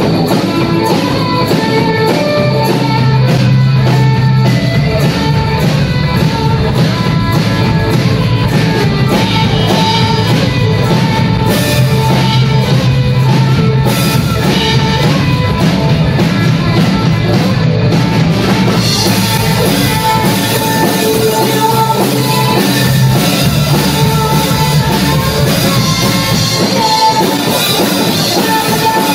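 Live rock band playing: a drum kit keeping a steady beat under electric bass and electric guitar.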